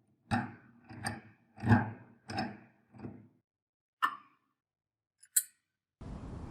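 Five evenly spaced knocks, about two-thirds of a second apart, then two sharp clicks; near the end a steady noise starts.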